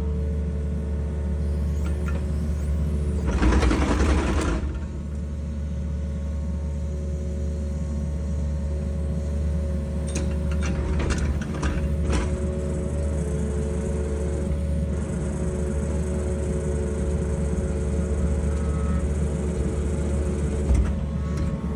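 Excavator diesel engine running steadily under load while its hydraulic auger drills a pier hole. A louder, noisy burst lasts about a second, a little over three seconds in, and a few sharp clicks come near the middle.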